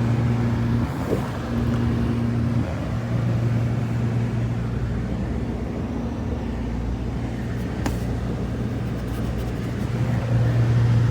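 The 5.3-litre V8 of a 2000 GMC Sierra idling: a steady low hum. There is one faint click about eight seconds in.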